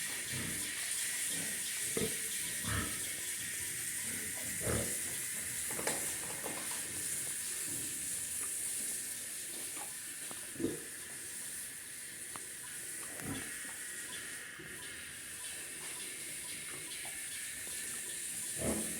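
Pigs grunting now and then, short low grunts a few seconds apart, over a steady high hiss.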